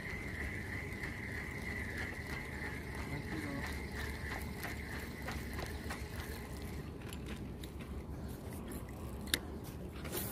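Spinning fishing reel being cranked, its gears giving off a faint run of fine clicks as a fish hooked on the sabiki rig is wound in. A steady high whine runs alongside and stops about two-thirds of the way through, and a sharper click comes near the end.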